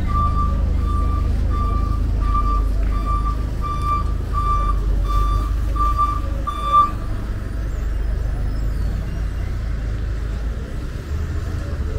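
A vehicle reversing alarm sounding a single high beep about one and a half times a second, stopping about seven seconds in, over a steady low engine rumble.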